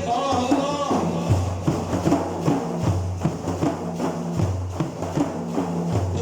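Instrumental break in an Iraqi folk song: a steady drum beat over a repeating low bass line. A melodic line, likely the singer's voice, fades out about a second in.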